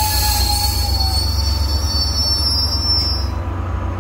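FrontRunner commuter train's double-deck coaches rolling slowly past at a platform, with a steady low rumble. A high thin wheel squeal fades out about three seconds in.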